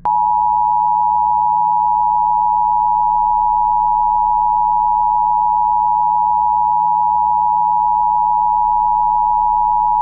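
Emergency Alert System attention signal: a loud, steady two-tone beep (853 and 960 Hz) held for about ten seconds, switching on and off abruptly.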